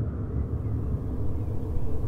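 A steady low vehicle rumble.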